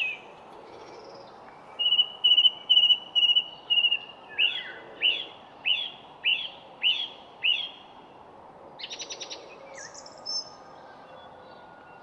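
Songbirds singing: a run of quickly repeated high notes, then six evenly spaced downward-sliding notes, then a brief rapid trill near the end, over a steady background hiss.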